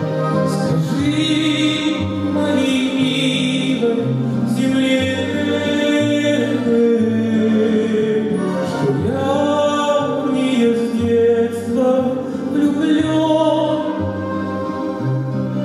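A man singing a slow song into a microphone with grand piano accompaniment, a pattern of low notes repeating beneath the voice.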